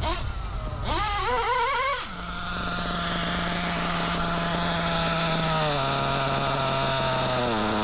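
Novarossi nitro RC engine running with a buzzing tone, its pitch wavering up and down for the first two seconds, then holding steady and dropping a step about six seconds in.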